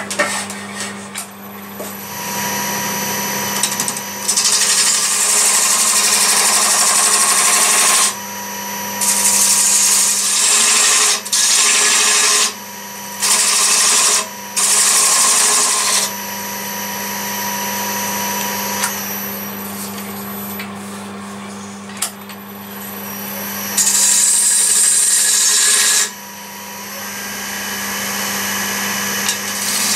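Wood lathe running with a steady motor hum while a turning tool cuts the spinning walnut blank in a series of loud hissing passes, each one to four seconds long, with short pauses between and a longer lull in the middle. These are the shaping cuts that refine the profile of the lamp base.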